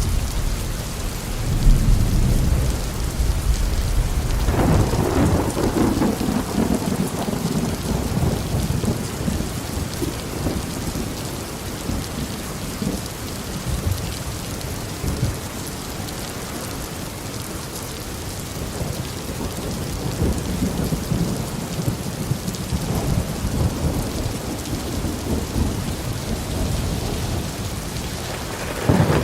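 Heavy tropical rain falling steadily with rolling thunder. A low rumble fades over the first few seconds, a louder peal swells about five seconds in and dies away, and another begins right at the end.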